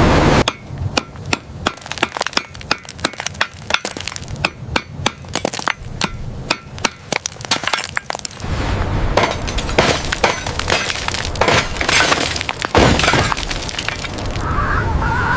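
A rapid, irregular series of sharp clinks and taps, then a steadier rumbling noise with scattered knocks for the last several seconds.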